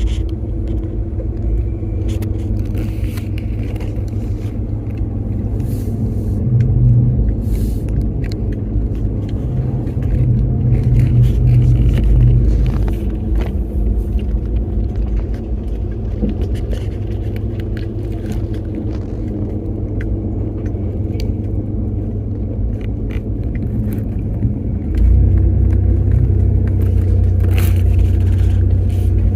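Vehicle on the road: a steady low rumble of engine and road noise, getting louder about 25 seconds in.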